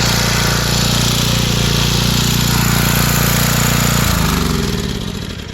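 Generac XL3500 portable generator's engine running steadily under load, then shut off about four seconds in, its note sliding down as it winds to a stop.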